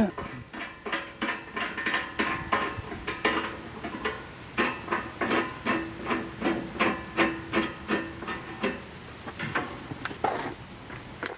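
Irregular knocks, taps and clinks of hand work on a mini excavator's metal parts, several a second at times, with a faint steady tone for a few seconds in the middle.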